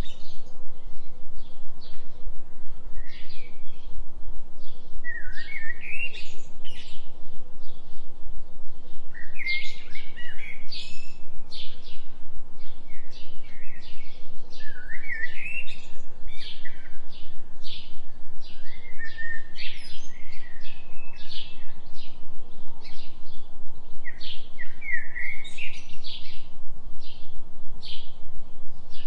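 Birds singing in short, repeated chirping phrases every second or two, over a steady low drone that pulses about three times a second: a 3 Hz delta-wave binaural tone.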